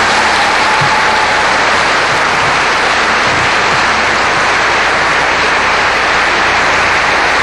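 Congregation applauding steadily, a dense, even clapping.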